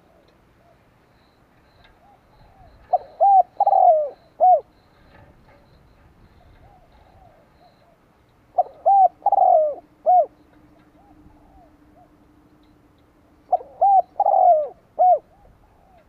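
Spotted dove singing three phrases about five seconds apart. Each phrase is a few short coos around one longer, falling coo, with fainter coos between the phrases.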